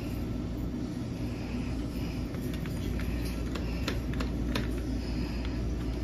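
Steady low hum and rumble of laundromat washing machines and dryers running, with a scatter of light, sharp clicks and ticks in the middle few seconds.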